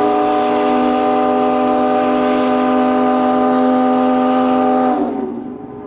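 Factory steam whistle blowing a steady chord of several tones, cutting off about five seconds in.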